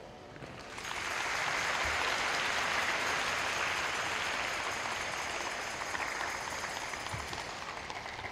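Audience applauding, starting about a second in and slowly tapering off.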